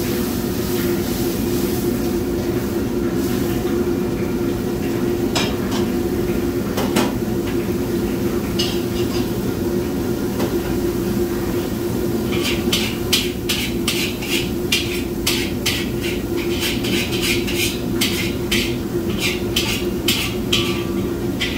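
A gas wok range and its exhaust hood running with a steady hum. A few separate metal clinks come in the first half, then from about halfway through a metal ladle clanks and scrapes against a wok, two or three strokes a second.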